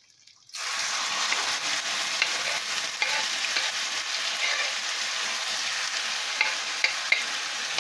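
Diced chicken thigh going into a hot frying pan of butter and vegetable oil and frying with a steady sizzle that starts suddenly about half a second in. A few small clicks sound over the sizzle.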